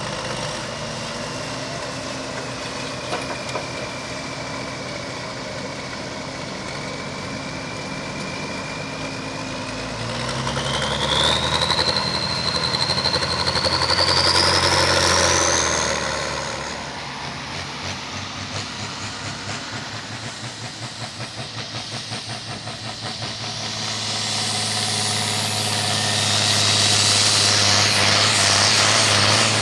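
Turbocharged diesel engine of an International Harvester 1466 Turbo pulling tractor running with a high turbo whine. About ten seconds in it revs up hard for several seconds, the turbo whistle climbing in pitch. After it drops back, a John Deere pulling tractor's engine runs up loud with a rushing hiss near the end.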